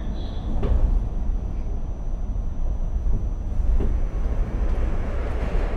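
New York City V line subway train heard from inside a car while riding: a heavy low rumble with a couple of knocks from the wheels, and a rising rush of noise near the end.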